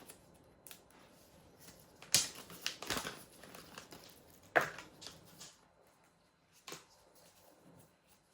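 Small plastic parts being handled: a few sharp clicks and taps with some crinkling, the loudest about two seconds in and again about four and a half seconds in.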